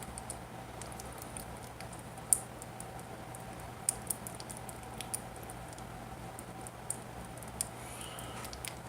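Wooden stick stirring two-part epoxy paste in a small plastic cup: light, irregular clicks and taps of the stick against the cup, over a steady low hum.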